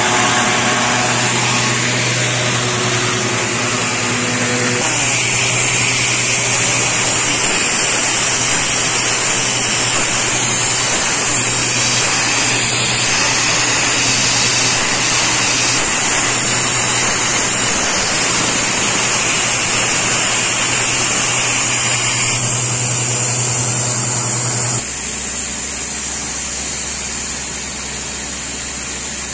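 Loud, steady machinery noise from rock drilling: a portable diesel air compressor running alongside a compressed-air drill rig boring a hole for a self-drilling rock anchor, with a constant hum and a hiss of air. The sound changes abruptly about five seconds in, and again near the end, where it drops to a lower, quieter hum.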